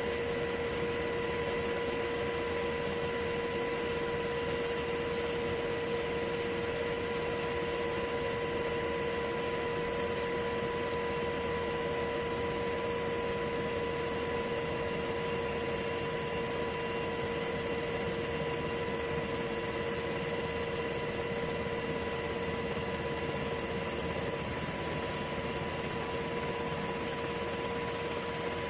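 Steady machinery noise, an even hum with a constant whine of several fixed tones over it, unchanging throughout.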